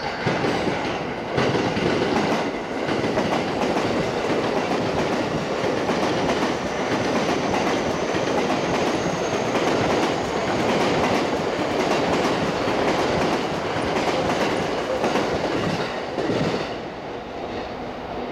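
A train running past on another track: steady wheel and running noise with clatter over rail joints, dying away about sixteen seconds in.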